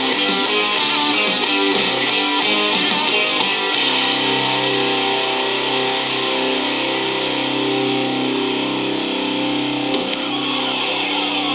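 Hard-rock music led by electric guitars: a choppy, rhythmic riff gives way to held, ringing chords about four seconds in.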